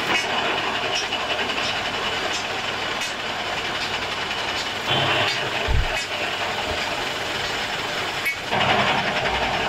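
Metal lathe running with a steady mechanical noise while a steel shaft is turned, with a low thump about six seconds in.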